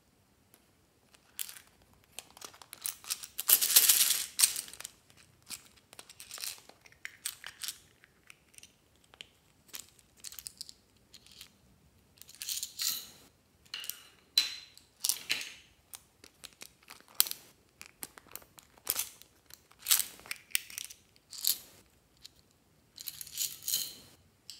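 Small plastic capsule pots clicking and knocking as they are handled and opened, with small plastic pieces and sprinkles rattling as they are tipped out. The clatter comes in short clusters with quiet gaps, loudest about three to five seconds in.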